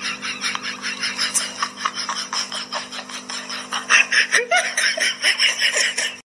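A person laughing in quick, breathy bursts, a few a second, growing louder about two-thirds of the way in, over a steady low hum.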